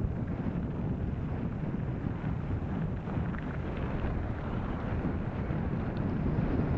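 Wind buffeting an action camera's microphone, together with the low rumble and light rattle of a Carraro Big 729 mountain bike rolling fast downhill over a rough dirt road.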